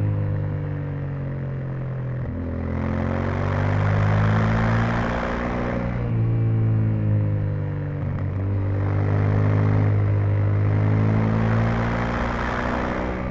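Yamaha Ténéré 700's 689 cc parallel-twin engine through its stock exhaust, heard onboard while riding: the engine note climbs and drops back about three times as the throttle opens and closes. A rushing wind noise swells whenever the engine pulls hard.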